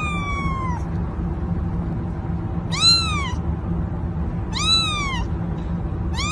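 Kitten meowing: four high calls about two seconds apart, each rising then falling in pitch.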